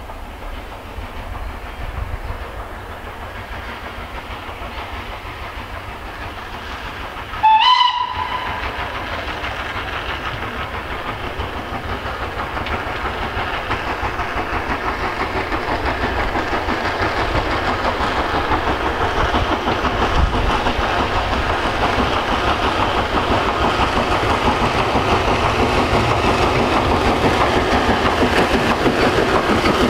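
Southern Railway S15 4-6-0 steam locomotive No. 847 gives a brief whistle about a quarter of the way in, its pitch rising slightly as it sounds. Its working exhaust and the train then grow steadily louder as it comes out of a tunnel and approaches.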